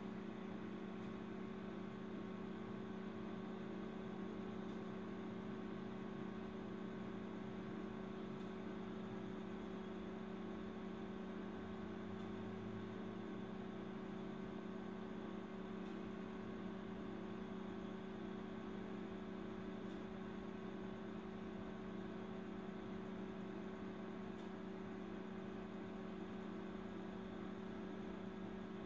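A steady, unchanging electrical hum.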